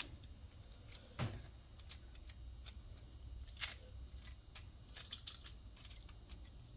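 Light, scattered clicks and taps of small metal parts being handled and fitted, over a low background hum; the sharpest click comes about midway.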